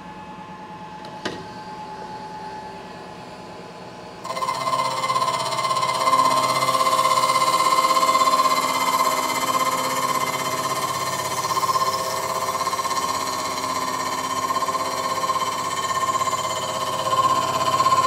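Milling machine running with a low hum and a sharp click, then about four seconds in a Walter face mill with polished inserts bites into the aluminum water pump housing and a steady, loud cutting sound sets in, with a ringing whine near 1 kHz, during a heavy facing pass.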